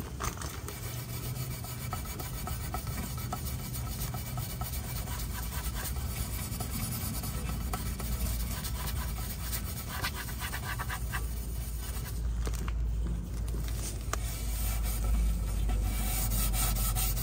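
Extra-fine (0000) steel wool scrubbed back and forth on a chrome exhaust tip trim, a continuous scratchy rubbing as it polishes away black carbon soot. It gets a little louder near the end.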